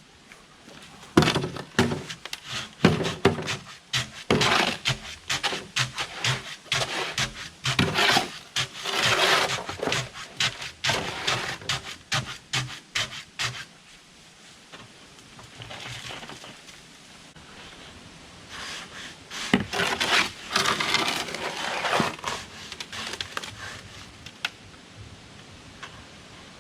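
Irregular scraping and knocking strokes in two bouts, one about a second in lasting some twelve seconds and a shorter one starting near the twentieth second, like hand work with a tool in dirt or wood.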